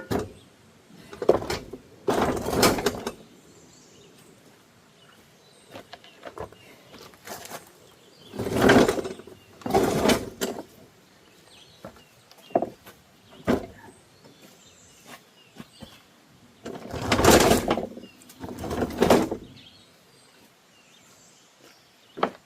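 Riding-mower cutting deck being wrestled loose and pulled out from under the mower: separate scraping, sliding bursts, each up to about a second and a half long, several seconds apart.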